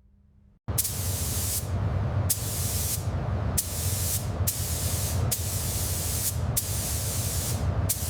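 A loud high-pressure spray starting about a second in: a hiss over a low rumble that surges again every second or so.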